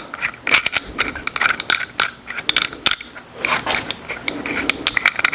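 Irregular metallic clicks and clinks of a connecting rod's cap, bolts and hand tools being worked as the rod is taken apart.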